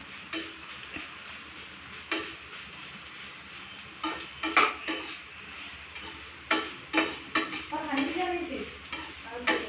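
Flattened rice (chira) being stirred and tossed in a kadai over a gas flame: a steady frying sizzle, with scrapes of the spatula against the pan coming in clusters.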